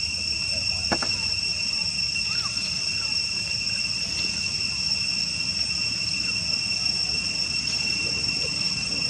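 Steady high-pitched insect drone, holding two even tones, over a low rumble, with a single sharp click about a second in and a few faint short chirps.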